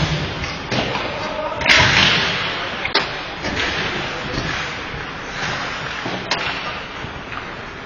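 Ice hockey play: sharp cracks of sticks and puck, with skates scraping the ice. A louder scrape about two seconds in, and faint shouting voices under it.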